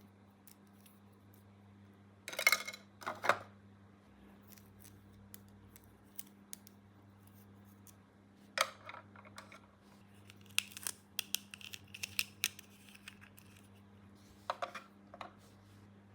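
Several short bursts of scratchy, crinkling handling noise from plastic toy parts and packaging being worked by hand, the loudest about two and a half seconds in. A steady low hum runs underneath.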